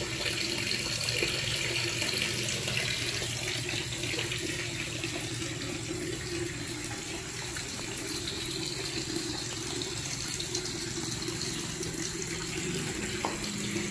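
Steady bubbling and gurgling of water from an aerator's air stone in a shallow concrete hatching tank.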